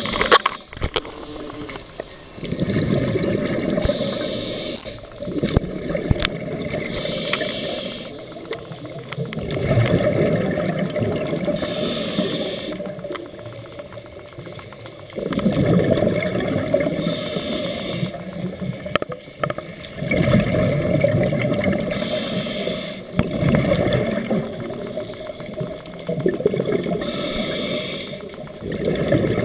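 Scuba diver breathing through a regulator underwater, six breaths about five seconds apart. Each is a short hiss of inhalation followed by a longer rush of exhaled bubbles.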